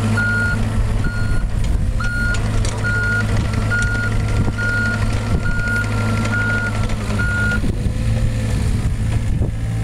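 Travel/backup alarm on a Komatsu PC35R-8 mini excavator beeping at a steady pace, about once every 0.7 seconds, over the steady running of its Yanmar three-cylinder diesel; the beeping stops a couple of seconds before the end while the engine runs on.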